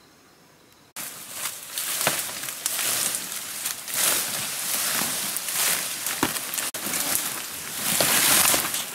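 Large banana leaves and brush rustling and crackling as they are pulled down and broken off, with several sharp snaps. It starts suddenly about a second in, after a faint, steady, high insect trill.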